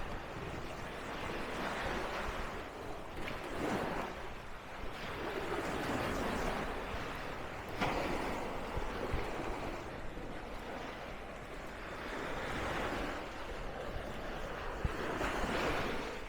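Sea waves breaking and washing up the beach, the sound swelling and fading every two to three seconds.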